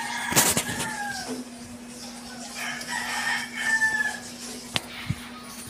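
A rooster crowing twice, each crow ending in a falling note, over a steady low hum. A short knock comes near the start and two sharp clicks near the end.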